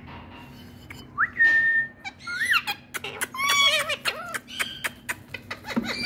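Indian ringneck parakeet whistling: a rising whistle held steady about a second in, then a run of short up-and-down whistled calls with sharp clicks between them.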